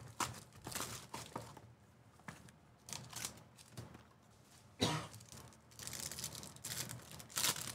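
Cardboard card box being opened and its foil-wrapped pack torn open: scattered paper and cardboard rustles and clicks, then denser foil crinkling and tearing in the last couple of seconds, with the sharpest rustle nearly five seconds in.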